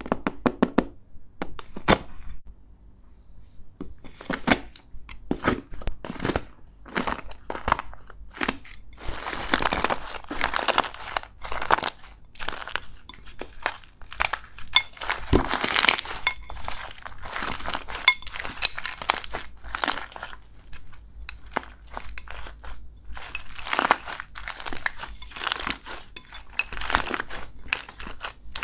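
Slime being squeezed and worked by hand, making a run of irregular crackles, pops and crinkling. A few separate clicks come first, and the crackling grows dense about four seconds in.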